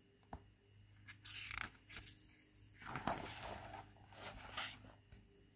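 Paper rustling and sliding as a picture-book page is turned: a short rustle about a second in, then a longer one about three seconds in.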